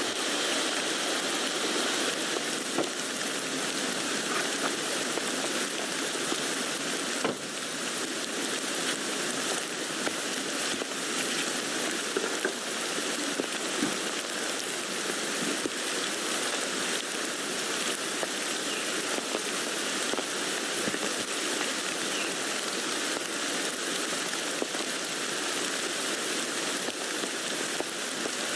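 Steady rain falling on a tent, an even hiss with scattered individual drop ticks.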